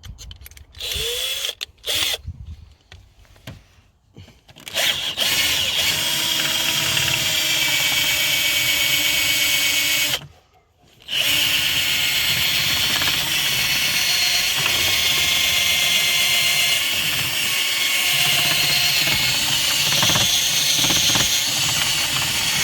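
Power drill running, boring a hole for the squirter's switch button: a few short sounds first, then the drill runs steadily from about five seconds in, stops briefly for about a second near the middle, and runs steadily again.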